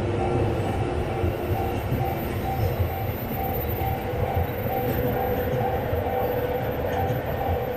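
Level-crossing warning bell dinging about twice a second, over the steady low rumble of a train going through the crossing.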